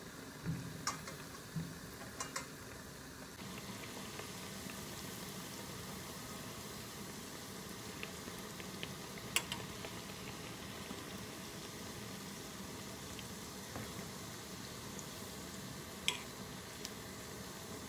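Dough pieces deep-frying in a small steel pot of hot oil, the oil bubbling and sizzling steadily. A few sharp clicks of metal tongs are heard, loudest about nine seconds in and again near the end.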